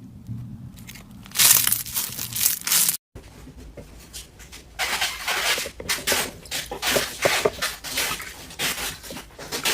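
Slime being squeezed and pulled by hand, giving repeated crackling, crinkly bursts, with a brief dropout about three seconds in.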